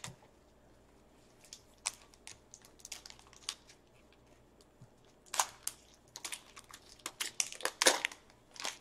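Gloved hands tearing open a trading-card pack and pulling the cards out: scattered crinkles and crackles of the wrapper, thickest in the last few seconds.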